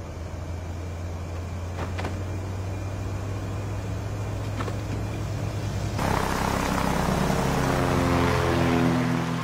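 Small propeller plane's engine droning steadily. About six seconds in, a louder rushing noise and a whine falling in pitch join it as the plane dives toward the ground.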